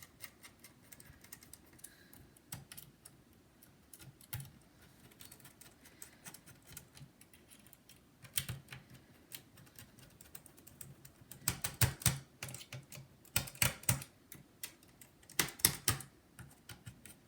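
Small sharp clicks and taps of hand work on an open laptop as the CPU heatsink is seated and fastened. They are sparse at first and come in quick, louder clusters in the last six seconds or so.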